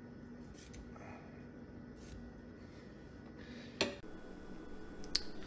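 A chef's knife trimming butcher's twine on a plastic cutting board: a few light clicks and taps, the sharpest one near the end.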